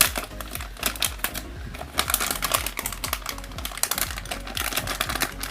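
Background music with a dense, irregular run of light clicks and taps, like small equipment and cables being handled during setup.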